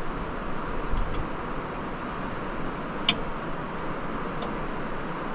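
Delta DC fast charger running with a steady whir, as from its cooling fans, while it goes through its isolation test before charging begins; a single sharp click about three seconds in.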